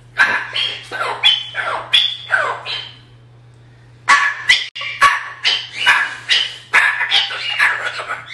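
A yellow-crested white cockatoo squawking and talking in a run of short, harsh calls. It pauses for about a second near the middle, then starts a second, longer run.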